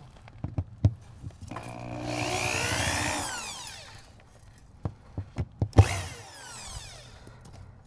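Handheld power drill revved twice: its motor whines up and winds back down, then a shorter burst fades away near the end, with a few clicks and knocks of handling the chuck and rod in between.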